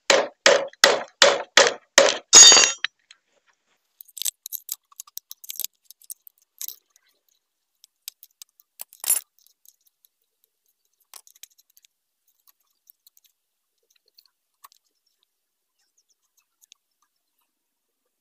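About seven quick, evenly spaced metal strokes on a freshly cut motorcycle roller-chain link as its cut end is evened up, then scattered light metallic clinks of the chain being handled and fitted around the rear sprocket.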